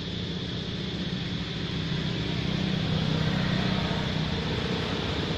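A steady low engine hum with a steady high hiss above it, growing slightly louder about two seconds in.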